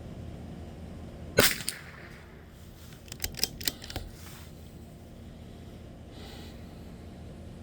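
A single shot from a Bergara B14R .22 LR rifle about a second and a half in. About two seconds later comes a quick run of small metallic clicks as the bolt is worked to chamber the next round.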